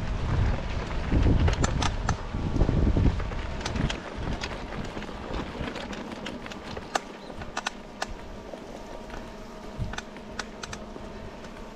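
Mountain bike rolling over a rough grassy trail, with many sharp irregular clicks and rattles from the bike. Wind rumbles on the microphone for the first few seconds, then eases.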